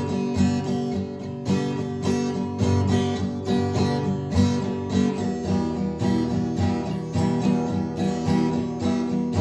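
Acoustic guitar strummed in a steady rhythm, chord after chord, with no singing.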